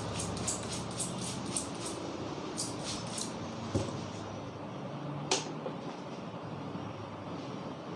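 Barber's hands tapping rhythmically on a customer's head, about four taps a second, stopping about two seconds in, then a few more. A single sharp crack comes about five seconds in, over steady street background noise.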